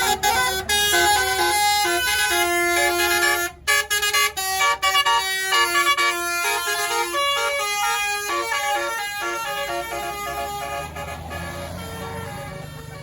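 A tour bus's Basuri telolet multi-tone horn playing a quick melody over the bus engine's low running drone. There is a short break about three and a half seconds in, and the sound fades over the last few seconds.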